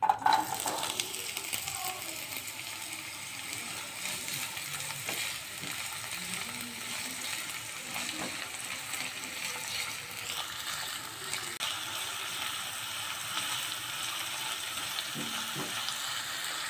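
Chopped onions dropping into hot oil and sizzling: a loud burst as they hit the oil, then a steady frying hiss. A spatula stirs and scrapes them around the nonstick pan.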